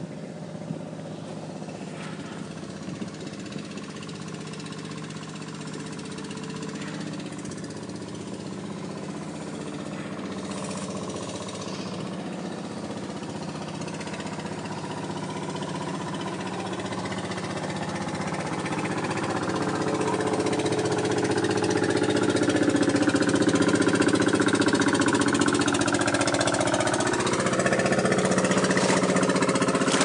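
Small boat engine running steadily, growing louder through the second half, its pitch dipping and then rising again near the end.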